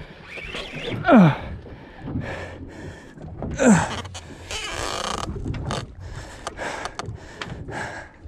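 A man groaning with strain twice, about a second in and again near four seconds in, each groan falling steeply in pitch, from the effort of winding a heavy fish up on a spinning rod. A short hiss follows around five seconds in, then a few light knocks.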